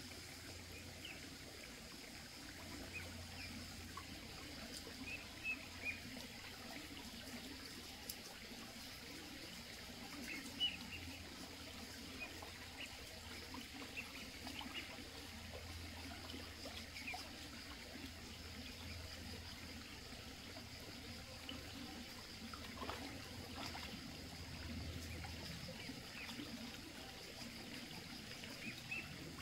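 Faint shallow water trickling down a muddy channel, steady throughout. Short high chirps come and go over it, along with a steady high-pitched tone and a couple of brief clicks.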